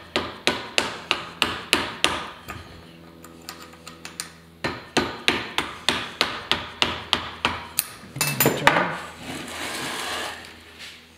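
Hammer tapping a pin into an old Ford synchromesh transmission case: two runs of quick taps, about four a second, then a few harder blows, followed by a scraping rustle near the end.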